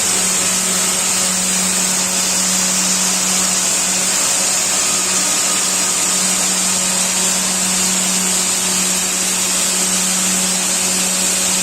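Open-width circular knitting machine running at high speed: a steady mechanical hum with a strong high hiss, unchanging throughout.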